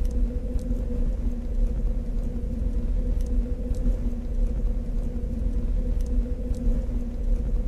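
Steady, deep machine rumble with a constant two-tone electrical hum, sprinkled with faint high ticks: a sci-fi lair room-tone ambience loop.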